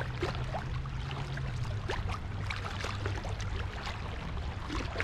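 River water flowing over a shallow riffle: a steady rush with many small splashes and trickles, and a low rumble underneath.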